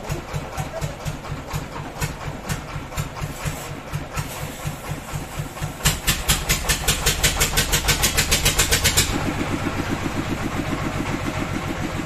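Sawmill's engine running with an even rhythmic beat. About six seconds in, a fast run of sharp clicks, about seven a second, lasts about three seconds, then stops suddenly.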